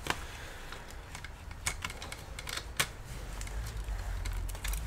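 Irregular light clicks and taps of a laptop motherboard, with its fan and copper heatsink attached, being handled and set into the plastic top case over the keyboard.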